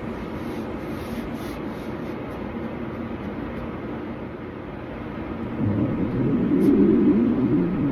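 A person's stomach growling: a low, gurgling rumble that swells louder about two thirds of the way in.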